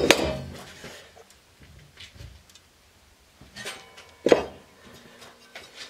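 Sheet-steel plates and a hand tool clanking against a bench vise and workbench as they are handled. There is a sharp ringing metallic clank at the start and another about four seconds in, with light taps and rattles between.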